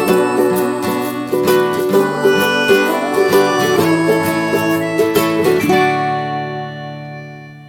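Instrumental music played on plucked strings: a run of quick picked notes that ends about six seconds in on a held chord, which rings and fades away.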